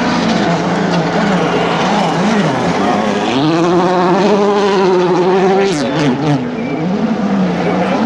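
Volkswagen Polo R WRC rally car's turbocharged four-cylinder engine revving hard through the gears on gravel, the pitch dipping at each shift. The note climbs and holds high for a couple of seconds, then drops off with a few sharp pops about six seconds in as the throttle is lifted.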